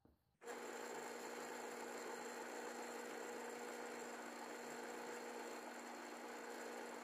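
Benchtop drill press running as its bit drills through a flat metal bar: a steady motor hum with a thin high whine over a hiss. It starts abruptly about half a second in and holds level without change.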